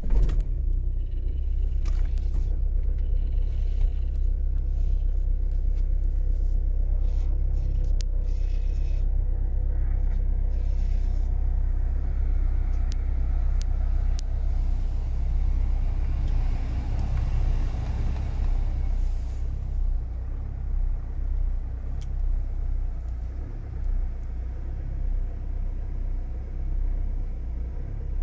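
Opel Astra J's 1.7 CDTI four-cylinder turbodiesel cold-starting at −14 °C: it fires up right at the start and settles into a steady, loud low idle rumble, easing slightly quieter after about twenty seconds. Heard from inside the cabin.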